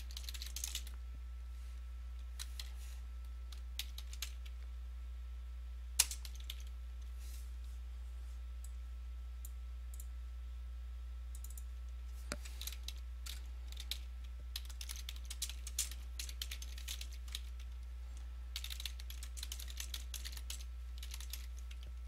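Typing on a computer keyboard in uneven bursts of key clicks, with a few single clicks between them and a quiet stretch in the middle. A steady low hum sits underneath.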